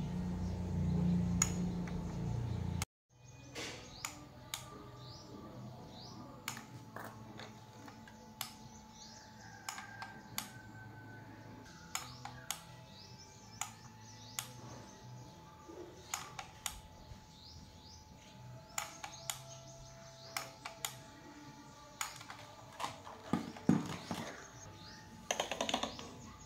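A low hum cuts off abruptly about three seconds in. Scattered light clicks and taps follow, several close together near the end, with faint short chirps between them.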